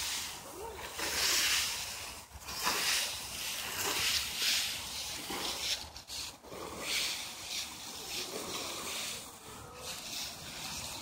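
Plastic leaf rakes dragging through a pile of dry fallen leaves on grass: repeated rustling, scraping strokes, roughly one every second or two.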